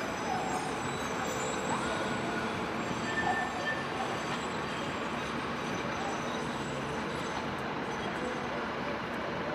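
Steady city-centre background noise beside tram tracks: distant buses and trams running, with passers-by.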